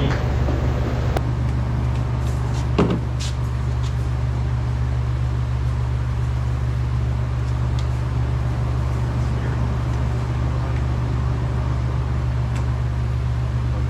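Steady low machine hum, with a few light clicks and one knock about three seconds in.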